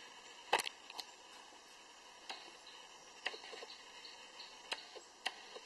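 Sony Alpha A33 autofocus clicking as it hunts for focus in the dim light: about six short, sharp clicks at irregular intervals, the loudest about half a second in.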